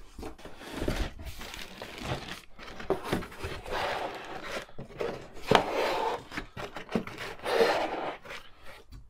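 Cardboard shipping carton and molded pulp end caps scraping and rubbing, with plastic wrap crinkling, as a boxed desktop computer is worked out of the carton. There are scattered light clicks and one sharp knock about halfway through.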